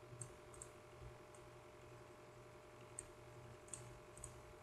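Faint computer mouse clicks, about five scattered ones, some as quick press-and-release pairs, over a low steady hum.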